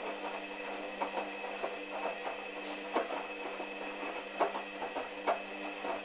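Hoover Dynamic front-loading washing machine tumbling laundry in its rinse water: the drum motor hums steadily while wet clothes slosh and drop with irregular splashes and soft knocks.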